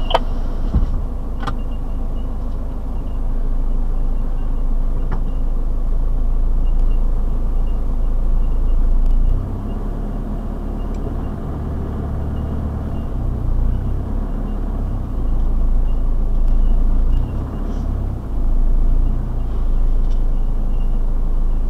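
Four-wheel-drive vehicle's engine and drivetrain working as it crawls along a dirt track, heard from inside the cabin: a low rumble that rises and falls with the throttle, dropping back about nine seconds in. A few knocks sound in the first couple of seconds.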